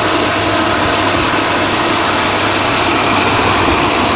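Sta-Rite IntelliPro variable-speed pool pump running steadily at its 3450 RPM filter speed, with air-laden water churning in the strainer basket as it primes.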